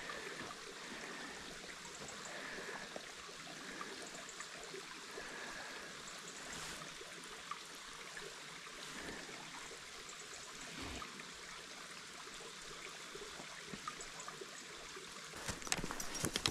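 Water trickling and running steadily, as from a small stream or spring. A few sharp clicks come near the end.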